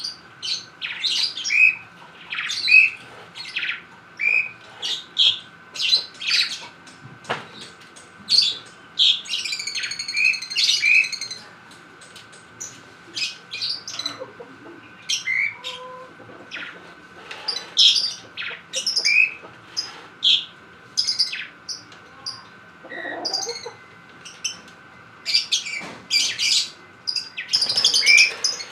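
Pet lovebirds chirping in short, shrill calls, one after another, with a short run of longer, harsher calls about ten seconds in.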